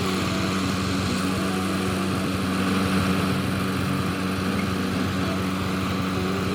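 Engine running at a steady speed with a constant low drone, driving a circular sawmill rig.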